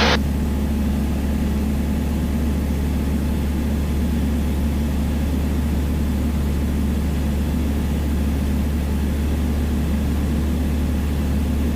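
Piper Dakota's single piston engine and propeller droning steadily in cruise, heard as a constant low cabin drone.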